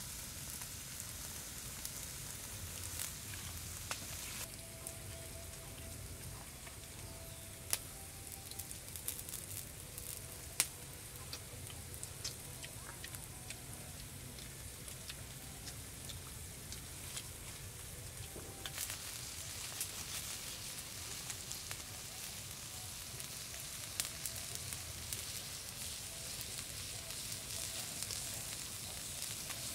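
Small open wood fire crackling with a steady hiss and scattered sharp pops, meat sizzling on the hot stone slab over it.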